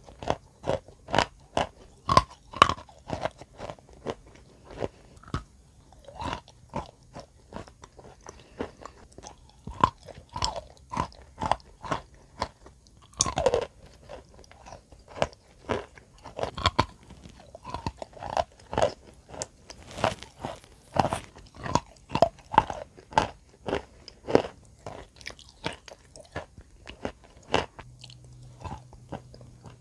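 Wet chalk being bitten and chewed: a steady run of crunches, one or two a second, with a louder, longer crunch about halfway through.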